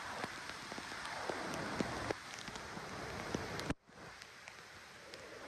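Steady rain falling, with individual drops ticking sharply close to the microphone. The sound drops off abruptly a little past halfway, then carries on quieter.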